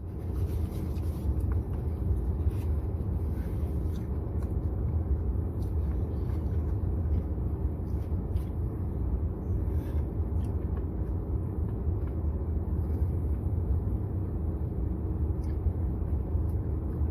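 Steady low rumble heard from inside a car's cabin, with a few faint clicks scattered through it.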